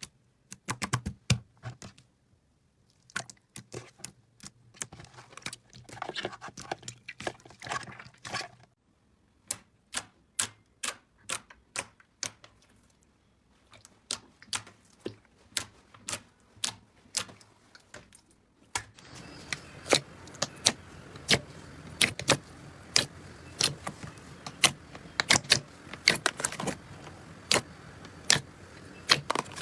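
Slime being pressed, stretched and folded by hand, giving a run of sharp sticky clicks and pops, one to three a second. About two-thirds of the way through, a faint steady hiss comes in under the pops.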